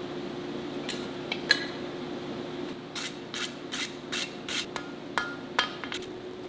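Hammer blows on hot steel over an anvil during a forge weld, each strike ringing: a few scattered blows, then a quick run of about nine at roughly three a second. A steady hum sits underneath.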